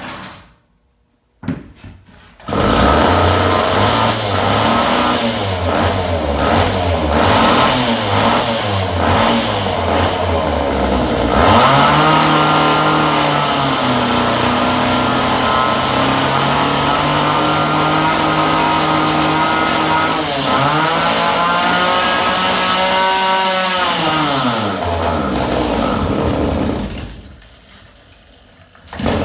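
Two-stroke chainsaw engine with its bar and chain removed. It catches a couple of seconds in and runs unevenly at low speed, then revs up and holds high for about twelve seconds before dropping back and stopping near the end.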